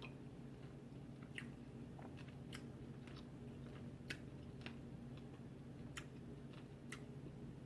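A person chewing food with the mouth close to the microphone: faint, irregular wet clicks and smacks over a steady low hum.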